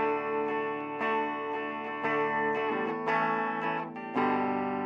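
American Deluxe Stratocaster on its bridge pickup played through a 5F1 Fender Champ-circuit tweed tube amp turned up to about 9. Chords are struck about once a second and ring out between strikes, the last one held near the end.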